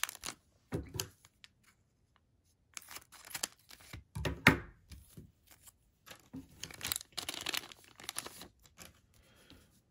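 A plastic card-pack wrapper being torn open and crinkled by hands, in several short spells of tearing and crackling with pauses between.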